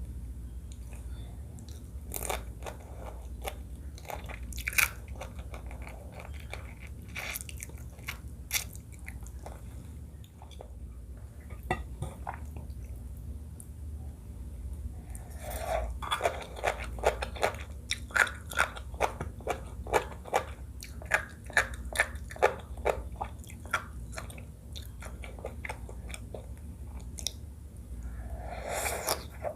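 Close-up eating sounds: a person biting and chewing seafood crab papaya salad with crunching. Scattered bites come in the first half, then a fast run of crunching starts about halfway, stops briefly, and resumes near the end.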